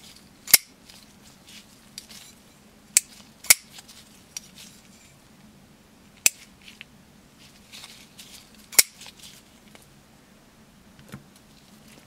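Robert Carter P40 titanium framelock flipper knife being worked in the hand: sharp metallic snaps of the blade flipping open and clicking shut, five loud ones spread out, with fainter clicks and handling noise between.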